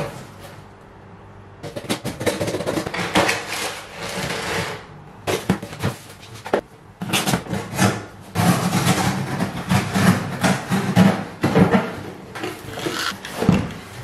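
Cardboard shipping boxes being opened and rummaged through by hand: flaps and packaging rustling and scraping in uneven bursts, with a few sharp knocks against the cardboard.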